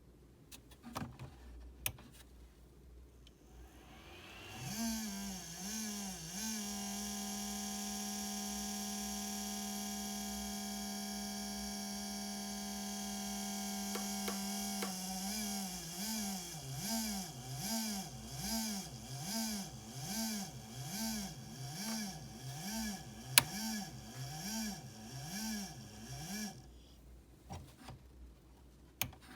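Cooling fan of a Creality Ender 3 Pro 3D printer spinning up after power-on, first with a steady whir, then hunting: its pitch rises and falls about once a second until it stops suddenly. A few sharp clicks come before and after. The owner takes the misbehaving start-up as a sign the fan is going bad.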